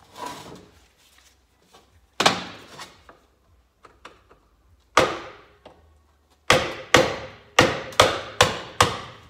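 Sharp metal tapping as a screwdriver is driven into the seam of a 1975 Kawasaki KE100's aluminium crankcase to pry the halves apart. A few single taps come a couple of seconds apart, then a quick run of about seven taps near the end.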